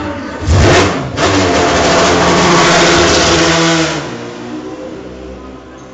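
Le Mans prototype race car leaving its pit box: a short loud burst about half a second in, then the engine revving hard for about three seconds as the car pulls away, fading near the end.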